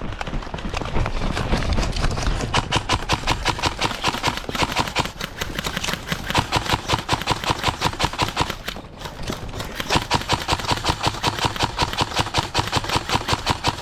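Footsteps of a player running in a steady rhythm of about four steps a second, with gear clattering, broken briefly near the middle.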